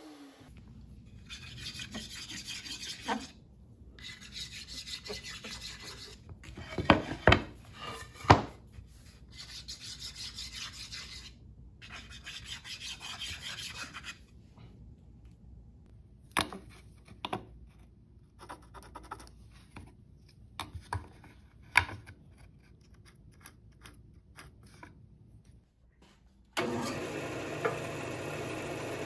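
Woodworking on mahogany boards. First come repeated scraping strokes on the wood, each a second or two long, with a few sharp knocks. Then there is quieter handling with scattered taps while the boards are chalk-marked. Near the end a bandsaw comes in abruptly and runs steadily.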